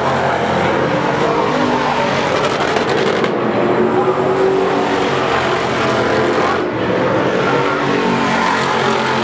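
Several dirt-track race cars' engines running at speed around the oval, their pitches shifting as the cars move through the turns.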